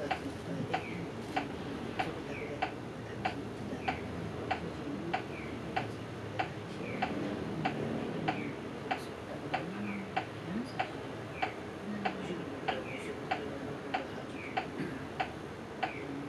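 Bus turn-signal flasher ticking steadily, about two clicks a second, alternating between two slightly different tones, over a low cabin rumble.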